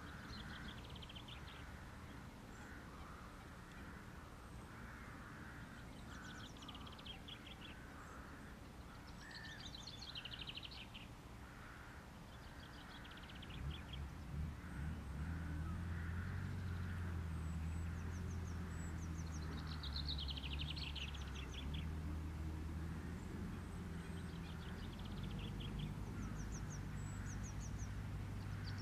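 Birds singing and calling around a reed-bed wetland: a small songbird repeats short, fast-trilled high phrases every few seconds, with softer, lower calls from other birds among them. About halfway through, a steady low hum sets in and continues under the birdsong.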